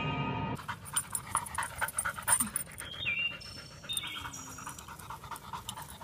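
A dog panting quickly. Background music cuts off about half a second in.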